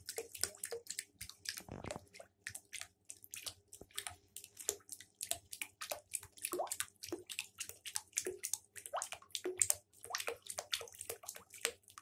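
Shallow bathwater splashing and lapping in quick, irregular strokes as a savannah monitor lizard moves its legs and tail about in a bathtub, trying to climb out.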